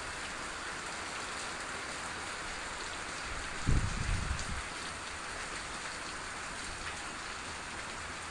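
Steady rain falling on the yard, plants and roof. About four seconds in, a brief low rumble on the microphone stands out above the rain.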